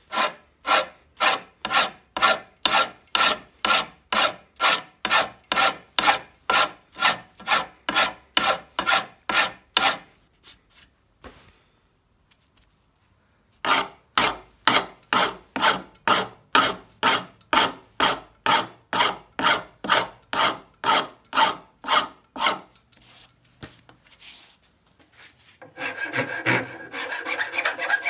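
A hand file rasping along the edge of an old meat cleaver as it is sharpened. The strokes are even, about two a second, with a pause of a few seconds partway through. Near the end they run together into a faster, continuous rasp.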